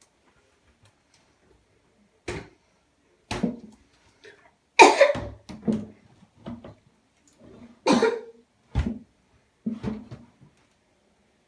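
A person coughing in a series of about eight harsh coughs in a small room, starting about two seconds in and loudest near the middle: a staged coughing fit.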